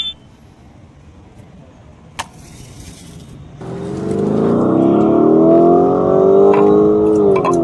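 Car engine revving: it starts abruptly about three and a half seconds in, climbs steadily in pitch and eases off near the end. Before it there is only a low hum and a single click.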